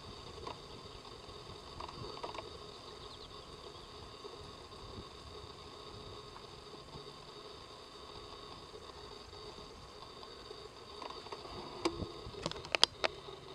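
Faint steady outdoor hum with a few soft ticks, then a quick cluster of sharp clicks and knocks near the end as the camera is handled.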